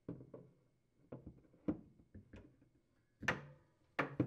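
Wire freezer shelves knocking and clicking against their supports as they are set back in place in a refrigerator's freezer compartment. A string of about ten short knocks, the loudest a little past three seconds in.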